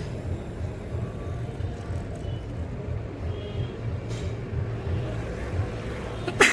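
A woman sneezes once, sharp and loud, near the end, set off by tickling her nostril with a rolled strip of paper. A steady low rumble runs underneath.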